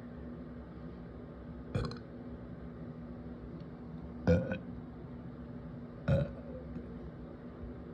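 A person burping three times in short bursts, the second the loudest, the gas brought up by Sparkling Ice carbonated flavoured water.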